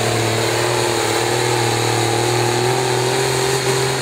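Ford pulling tractor's diesel engine running flat out under full load as it drags the weight sled, a steady, loud engine note that creeps slightly higher in pitch.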